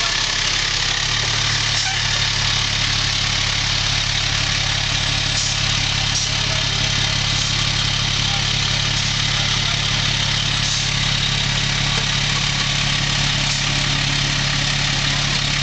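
Antique fire truck's engine running steadily at low revs, its note shifting slightly about a second in.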